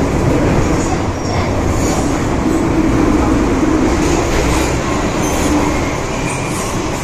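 Hong Kong MTR M-Train metro running at speed between stations, heard from inside the carriage: a steady rumble of wheels on rail with faint clicks and a light squeal of the wheels.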